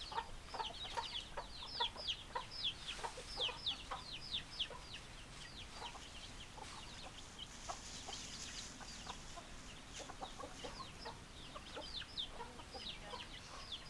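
Chickens clucking, with a constant stream of quick, high, downward-sliding peeps over short low clucks; the peeping thins out a little midway and picks up again near the end.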